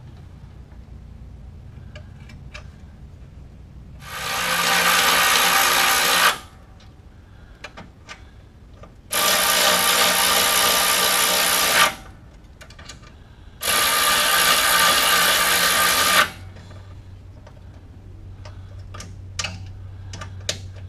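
Cordless drill-driver running in three separate bursts of about two to three seconds each, driving in the bolts that hold the mower deck's belt shield. Each burst cuts off sharply.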